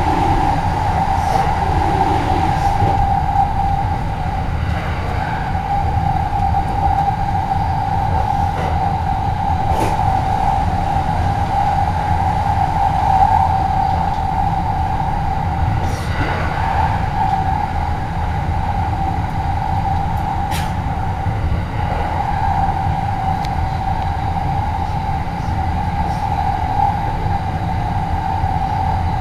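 Running noise heard inside a moving train car: a steady low rumble with a continuous whine, and a few faint clicks.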